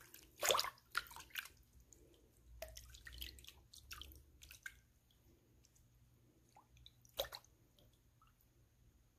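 Feet moving in a plastic basin of soapy foot-soak water: faint, scattered splashes and drips, the loudest about half a second in and again about seven seconds in.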